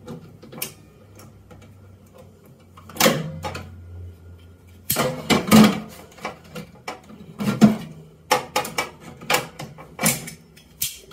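Metal pliers clicking and scraping on the microwave oven lamp's spade terminals and the sheet-metal cavity wall as the wire connectors are worked off, in a string of irregular sharp clicks and knocks, with a faint low hum in the first half.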